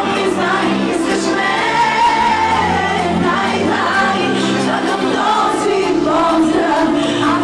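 A woman singing over backing music.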